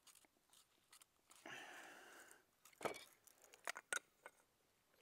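Faint handling sounds of a threaded fitting on top of a well casing: a short scrape, then a few sharp clicks as it is worked by hand.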